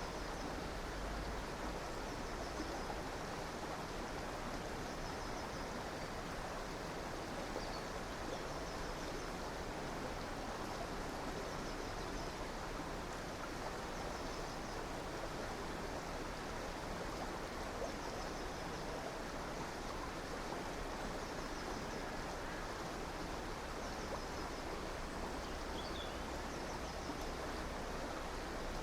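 Steady rushing of flowing river water, with faint high-pitched bird trills repeating every few seconds.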